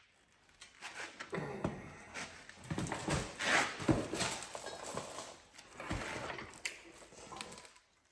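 Metal engine parts and hand tools being handled on a workbench: irregular knocks, clinks and short scrapes, with the busiest handling in the middle few seconds.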